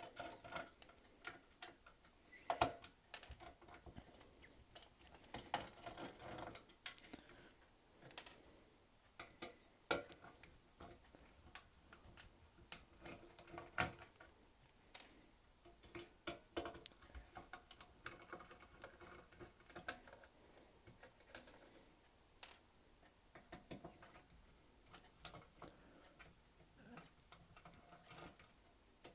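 Irregular small clicks and taps of a screwdriver working T8 Torx screws out of an Xbox 360's case, several of them sharper than the rest.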